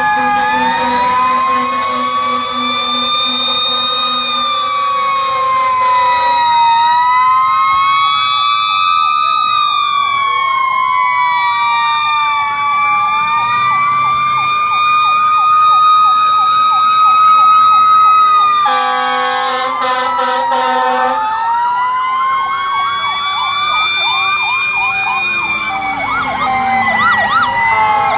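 Several fire engine sirens sounding at once, overlapping slow rising and falling wails with fast yelping sweeps. A loud steady blast cuts in about two-thirds of the way through.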